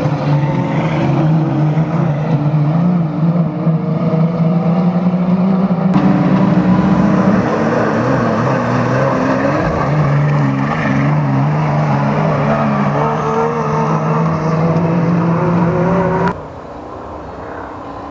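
GAZ-51 autocross race trucks' engines running hard as they race through a dirt turn, the pitch wavering up and down. A sudden change about six seconds in, and near the end the sound drops abruptly to quieter, more distant engine noise.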